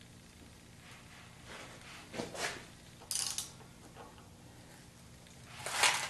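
Engine crankshaft being turned over by hand with a socket wrench, with short bursts of clicking and plastic sheet rustling as the pistons draw the covering down. The loudest burst comes near the end.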